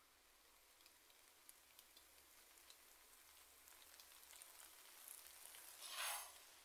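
Faint sizzling and crackling of spaghetti in tomato-paste sauce cooking in an aluminium pot, with a louder scrape near the end as the pasta is stirred with a spatula and fork.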